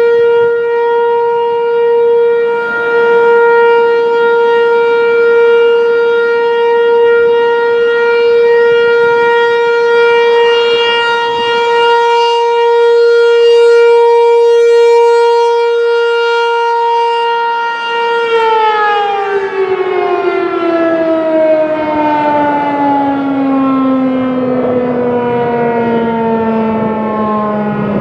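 American Signal T-135 rotating outdoor warning siren sounding a loud, steady alert tone that swells and fades slightly in loudness. About two-thirds of the way through it is switched off and winds down, its pitch falling steadily.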